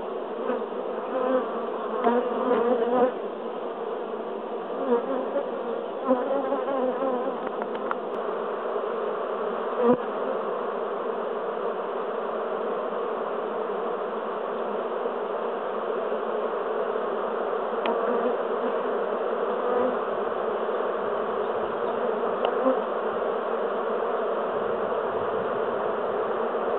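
Many honeybees buzzing in a dense, steady hum. In the first several seconds, single bees fly close past and their buzz briefly swells louder.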